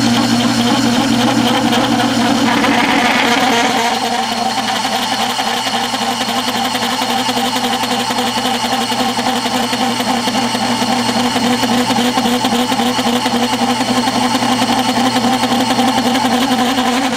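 Metal lathe taking a plunge cut into a spinning metal bar, the cutting tool screeching and chattering in a steady ringing whine over the lathe motor's hum. The chatter, which leaves chatter marks, comes from the wide radius of the cut.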